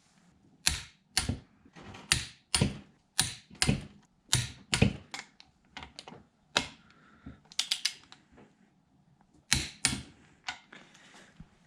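Torque wrench on cylinder head bolts: irregular sharp metallic clicks, some in quick pairs, as the wrench ratchets and the bolts are brought up to torque in stages.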